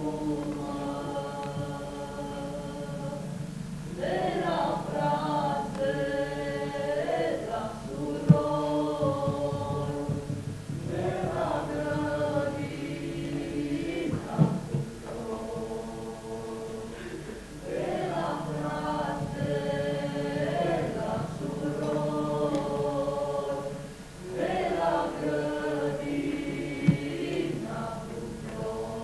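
Choir singing slow, chant-like phrases of held notes over a low sustained note, with three short sharp knocks, the first about eight seconds in.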